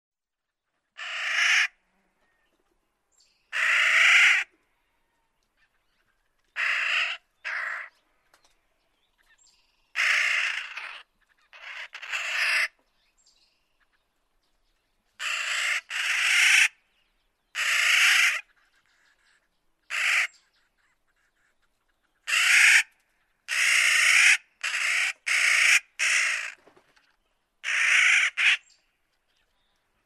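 Clark's nutcracker giving harsh, drawn-out calls, about fifteen of them at irregular intervals, some coming two or three in quick succession.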